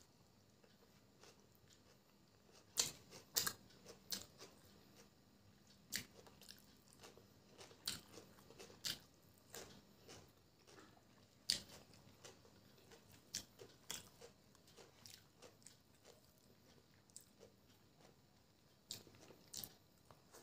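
Close-up eating sounds of chicken biryani being eaten by hand: chewing with irregular sharp mouth clicks and smacks, about one a second, some louder than others.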